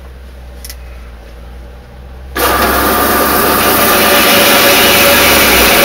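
Small bandsaw with a roughly 400-watt motor switched on suddenly about two seconds in, then running steadily and loudly as a board is fed into the blade to cut a notch.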